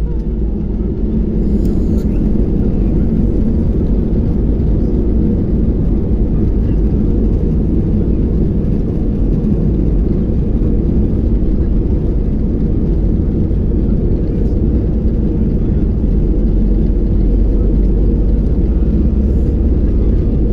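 Airbus A319's CFM56 turbofan engines at takeoff power, heard inside the passenger cabin as a loud, steady low rumble mixed with runway rumble during the takeoff run.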